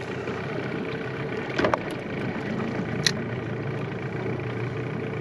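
Small Yamaha outboard motor running steadily at trolling speed, with a short knock and then a sharp click partway through.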